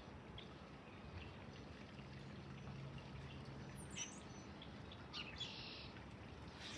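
Faint bird chirps, with a few short calls about four seconds and five and a half seconds in, over a low steady hum.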